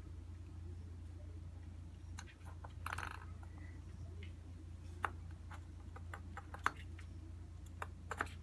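Scattered light taps and sharp clicks from kittens playing on a hard floor, with a brief scuffle about three seconds in, over a steady low hum.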